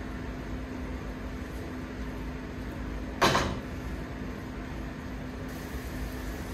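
Chopped onions frying in oil in a nonstick wok, stirred with a silicone spatula, over a steady low hum. One sharp clack of the spatula against the pan about three seconds in.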